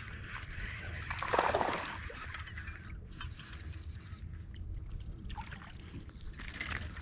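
Water sloshing and trickling, with a louder splash about a second and a half in.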